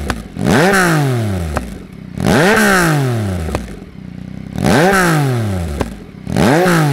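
Yamaha MT-09's inline three-cylinder engine with a full aftermarket exhaust, revved four times from idle on the stand. Each rev rises sharply and falls away over about a second and a half, with a sharp pop from the exhaust as the revs drop.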